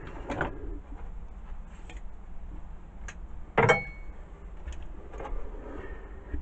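Scattered handling knocks and clicks of metal parts as the chuck is unscrewed from an old Black & Decker drill with a chuck key, the loudest a sharp knock with a brief metallic ring about three and a half seconds in.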